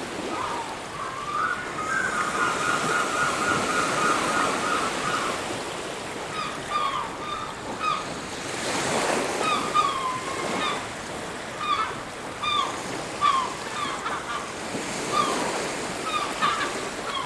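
Surf washing on a beach, one wave swelling louder about nine seconds in, with birds calling over it. The birds give a fast chattering run of calls lasting a few seconds, then short separate calls every half second or so.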